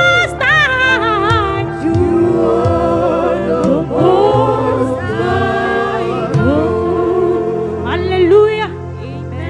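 Gospel praise singing by female voices in harmony, with held, wavering notes over instrumental backing. The low accompaniment drops out at the very end.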